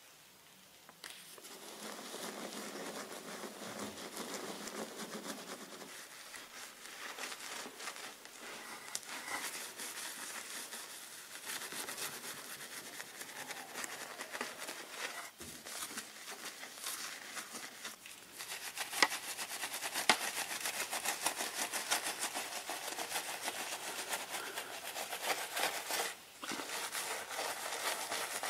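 Wash mitt scrubbing over a foam-covered car's glass and paint, a wet rubbing noise full of small crackles as the suds are worked. It starts about a second in and gets louder for the last third.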